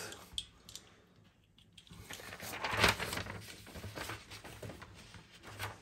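Faint, irregular scratching and rubbing of a drawing tool on paper as shading is laid down, starting about two seconds in after a near-silent pause.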